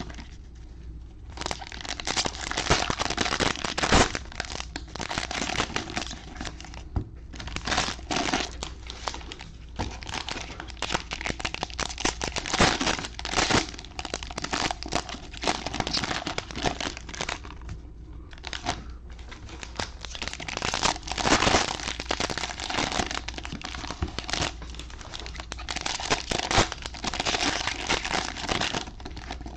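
Plastic wrappers of football trading-card fat packs crinkling and tearing as they are ripped open and handled, with sharp crackles, going on and off with a few short pauses.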